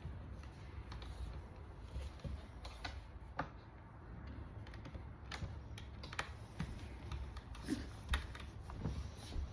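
Scattered light clicks and taps of metal hardware as a T-handle hex key turns bolts into a bar stool's frame, the clicks coming faster near the end. A low steady hum runs underneath.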